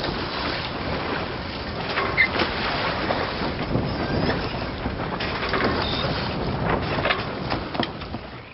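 Boat at sea: a steady rush of water and wind with scattered knocks, fading out at the very end.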